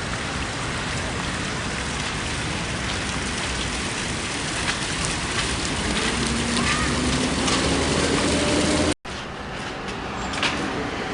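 Busy outdoor city ambience: a steady noisy hum with a vehicle engine rising in pitch as it passes, which stops abruptly about nine seconds in and gives way to quieter street noise with a few light clicks.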